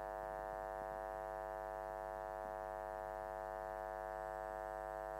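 A steady electrical hum with many overtones, holding the same pitch and level throughout.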